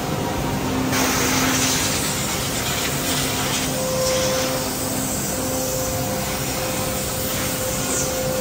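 Steady machinery noise in a woodworking shop: a continuous hiss with a faint steady hum under it.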